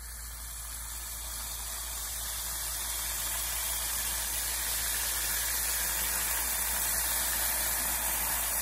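Liquid nitrogen being poured from a stainless steel flask onto lead airgun pellets in a small cup, hissing steadily as it boils off on the warmer metal. The hiss grows gradually louder.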